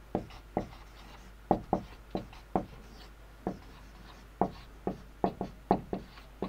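Marker pen writing on a whiteboard: a string of short, irregular strokes and taps as letters are written out.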